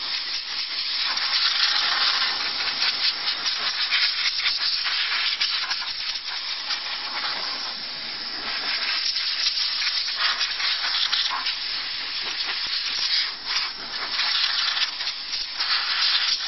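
Compressed air from an air-compressor blow gun hissing in one long continuous blast, blowing dust out of an opened DVD player. The level wavers throughout.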